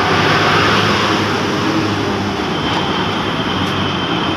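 Steady rumble of busy street traffic.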